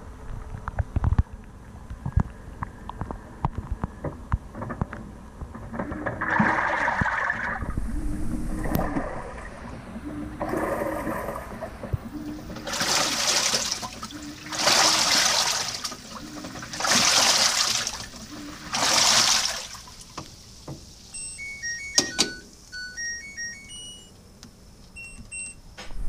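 LG 18 kg top-load washing machine agitating, heard from inside the drum: water churning and sloshing in surges about every two seconds, each with the hum of the drive motor. Near the end the washer gives a short tune of electronic beeps at several pitches.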